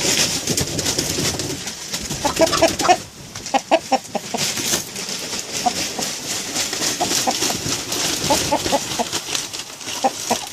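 Chickens clucking, many short low calls scattered throughout, over a steady high hiss.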